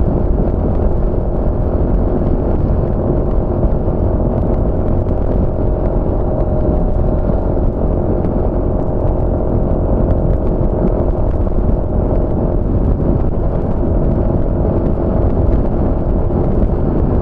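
Honda Forza MF15 scooter's single-cylinder 250 cc engine running steadily while cruising, with a heavy, steady low rumble underneath.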